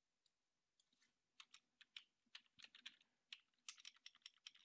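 Faint typing on a computer keyboard: a quick, irregular run of keystrokes that starts about a second and a half in.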